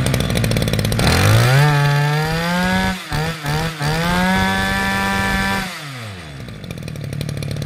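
Shindaiwa 24cc two-stroke brush cutter engine running just after a pull start. About a second in it revs up from idle and holds a high whine, dips several times briefly around the middle, revs high again, then drops back to idle near six seconds.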